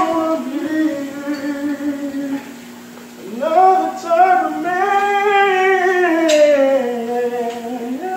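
A solo voice singing R&B with melismatic runs: one phrase ends about two and a half seconds in, then a long phrase follows whose held note bends up and then slowly falls.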